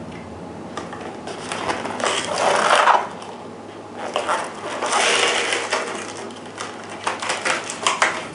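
Stiff plastic clamshell packaging being handled and opened, crackling and crinkling, with two louder stretches a few seconds apart and scattered clicks.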